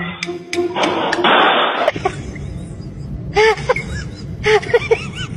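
A small dog barking in quick short yaps, two or three at a time, over a low street rumble, starting after a noisy first two seconds.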